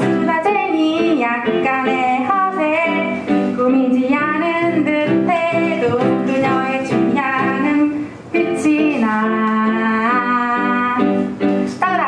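A live song: a Casio electric keyboard plays steady, repeating chords while women sing the melody.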